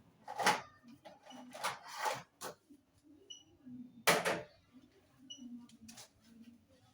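Serving spoon knocking and scraping against a cooking pot and plate as food is dished up: a handful of sharp clatters, the loudest about four seconds in.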